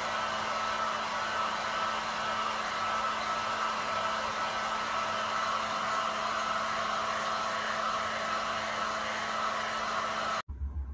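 Steady whirring air noise from a small electric blower motor, with a constant low hum. It cuts off suddenly about ten and a half seconds in.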